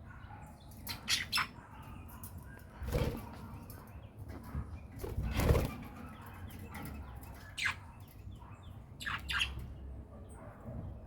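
Birds giving short, sharp chirps now and then, in twos and singly, with two louder noisy bursts about three and five and a half seconds in.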